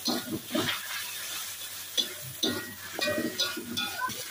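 Metal spatula scraping and clinking against a metal wok as clams in their shells are stir-fried in a sizzling soy-sauce mixture, in repeated strokes.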